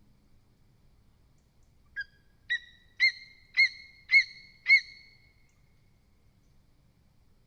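Lesser spotted eagle calling a series of six short, high yelping notes about half a second apart, each louder than the one before.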